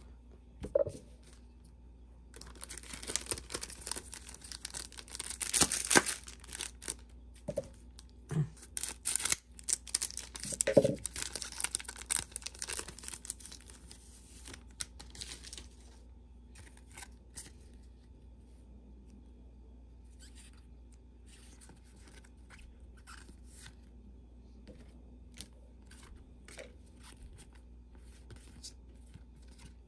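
A Pokémon card booster pack wrapper being torn open and crinkled, a dense papery rustle from about two seconds in until about sixteen seconds. After that, only scattered faint rustles and clicks.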